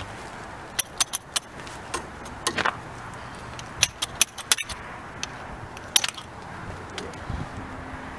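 Sharp metallic clicks and clinks, a dozen or so, as a gas heating torch is handled and set against a steam locomotive's eccentric. Near the end comes a low thump and the start of a hiss as the torch is lit to heat pins that are seized tight.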